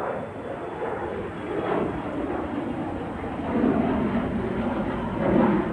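Embraer E175's twin GE CF34 turbofan jet engines at takeoff power, heard from outside as a loud, rough jet noise that swells and dips several times.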